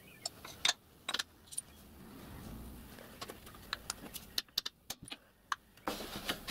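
Light metallic clicks and clinks of steel letter punches being handled and set into a wooden punch guide on a milling-machine vise, with small knocks of tools on the steel.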